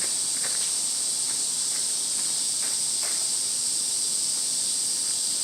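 Steady high-pitched insect chorus, an unbroken shrill hiss, with a few faint short sounds in the background.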